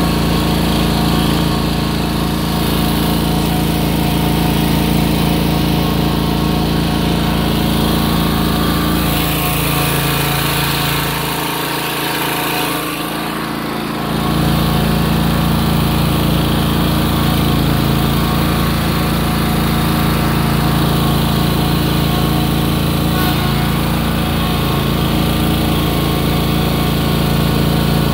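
Ride-on lawn mower engine running steadily at working speed, with a short drop in the low rumble about twelve seconds in.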